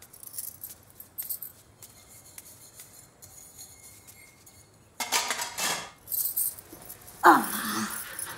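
Steel dishes and vessels clinking lightly as they are washed. A louder sudden clatter comes about five seconds in, and a short falling voice-like sound near the end.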